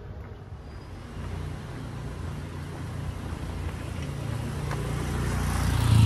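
A motor vehicle approaching and passing close, its engine and tyre noise growing steadily louder toward the end.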